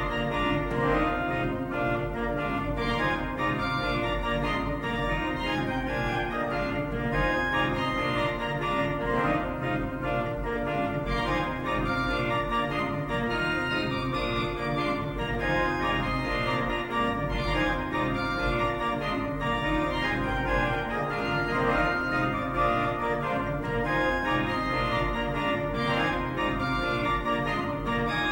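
A 57-rank Noack pipe organ playing a fast, driving piece: quick, continuous patterns of notes over a sustained deep bass, at a steady full level.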